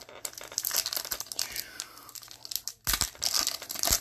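Foil wrapper of a trading-card pack crinkling and tearing as it is pulled open by hand, with two sharper crackles near the end.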